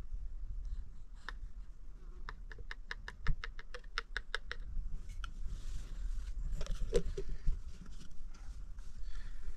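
Small plastic formula scoop tapping quickly against a baby bottle's rim, about five light ticks a second, as powdered formula is knocked into the bottle. Then rustling and a few knocks as the bottle and the formula tin are handled.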